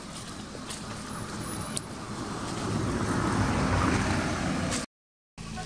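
A car driving past on a road, its road noise swelling over a few seconds to a peak, then cutting off suddenly near the end.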